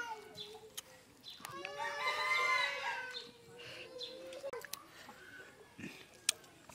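A rooster crowing once, a long drawn-out call starting about a second and a half in, with a few sharp light clicks later.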